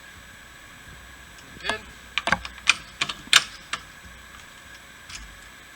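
A quick run of sharp metal clicks and taps, about eight in two seconds: the mast's pivot pin being worked into its hinge fitting.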